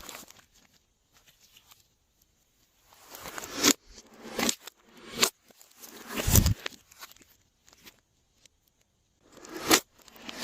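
Glossy slime being squished and stretched by hand: several short bursts of sticky crackling and popping clicks with quiet gaps between, one burst near the middle carrying a soft low thump.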